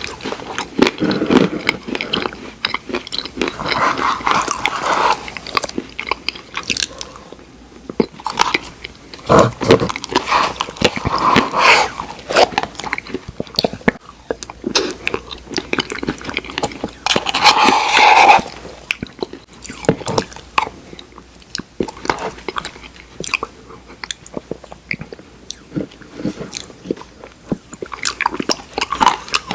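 Close-miked eating of Oreo ice cream: wet mouth sounds and smacking, with chewing that crunches cookie pieces. It comes in irregular bursts, with a louder stretch a little past the middle.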